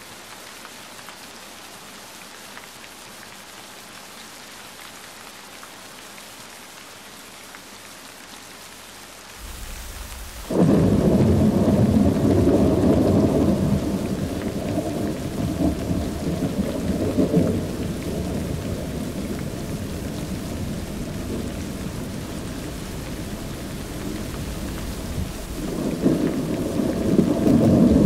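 Steady rain. About ten seconds in, thunder breaks loudly and rolls on for several seconds, slowly fading, then swells again near the end.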